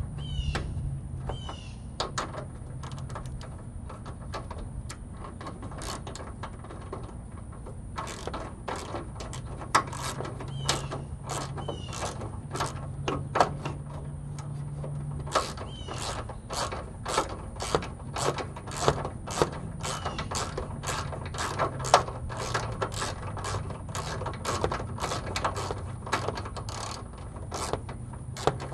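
Hand ratchet clicking in short, irregular strokes as it works a fastener on the airbag sensor mount. The clicks are sparse at first and come thick and fast from about a third of the way in.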